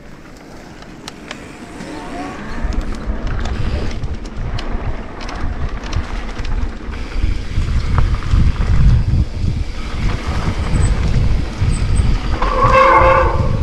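Wind buffeting the microphone and a low rumble from a mountain bike riding a trail at speed, building about two seconds in, with scattered clicks and rattles from the bike. Near the end comes a short pitched sound lasting about a second.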